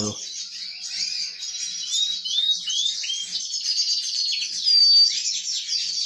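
Small aviary finches chirping and twittering in quick high notes, with a few short sliding calls about two to three seconds in and a clear high whistle near five seconds.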